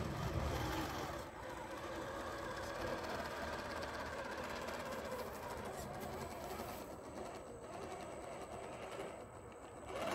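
Redcat Gen8 RC crawler's 20-turn Axial brushed electric motor and geartrain whining steadily under load as the truck crawls up a steep ramp.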